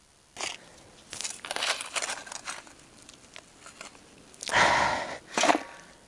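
Digging in root-filled soil: a run of crunching, scraping and clicking strokes, with two louder rasping scrapes near the end.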